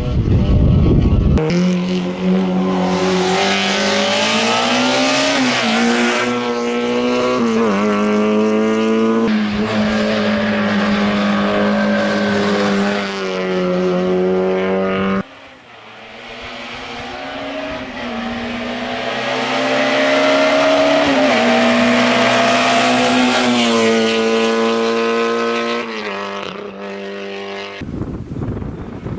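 Rally car engine pulling hard through the gears, the revs climbing and then dropping at each upshift, with some tyre squeal. The sound cuts off suddenly about halfway through and picks up again on another pass.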